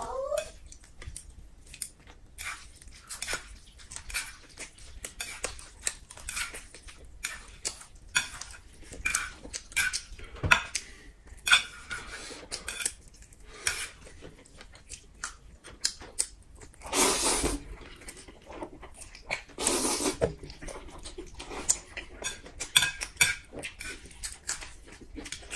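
Close-up eating sounds: chopsticks and skewers clicking against a plate and a grill tray, with chewing in between. Past the middle come two longer noisy stretches, about a second each.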